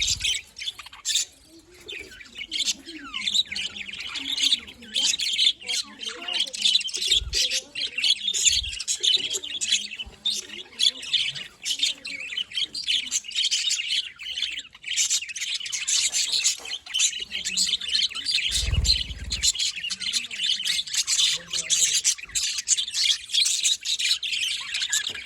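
A group of budgerigars chattering and chirping continuously, with rapid overlapping chirps and squawks, and a brief low thump about two-thirds of the way through.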